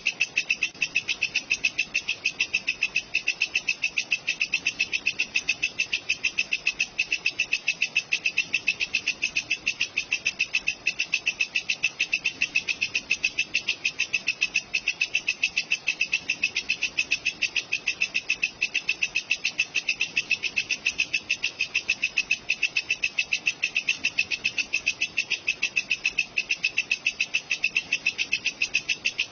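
Walang kecek, a singing bush insect used as a masteran sound for songbirds, giving a steady, evenly spaced run of shrill chirps that does not change.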